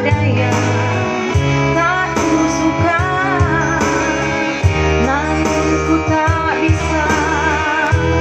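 Woman singing an Indonesian ballad into a microphone over instrumental accompaniment, with vibrato on long held notes and steady bass notes underneath.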